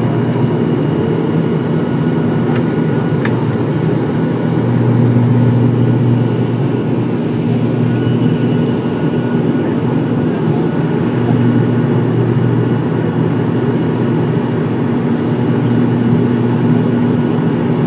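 ATR-72's turboprop engines and propellers droning in the cabin, a steady low hum that swells and fades every few seconds.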